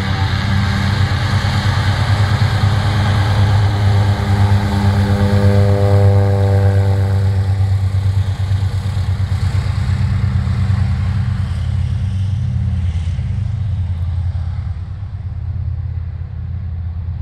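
Antonov An-2's nine-cylinder radial engine running as the biplane taxis past, growing louder until about six seconds in and then fading as it moves away.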